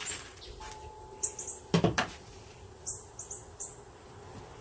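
Plastic sheeting crinkling and rustling as it is wrapped by hand around a rolled fabric bundle, loudest in a short burst of crackles a little under two seconds in. Short high bird chirps come every second or so.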